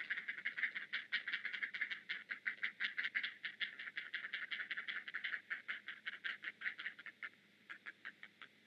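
Great blue heron nestlings giving their rapid, chattering begging calls, about eight a second, as the parent regurgitates food for them. The calls thin out to scattered ones near the end.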